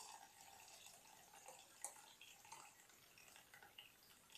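Faint trickle of hibiscus infusion poured from a saucepan through a mesh strainer into a glass bowl, thinning to drips, with a light click about two seconds in.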